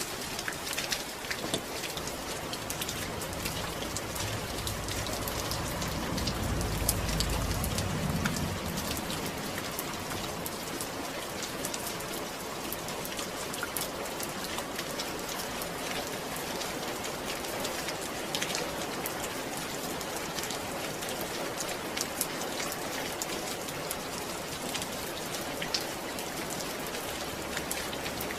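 Steady rain falling, with the patter of many individual drops. A brief low rumble swells and fades about six to eight seconds in.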